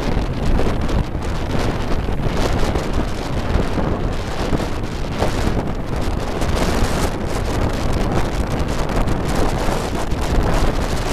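Steady, loud wind buffeting the microphone of a rider on a moving motorbike taxi, with the motorbike's engine and surrounding traffic running underneath.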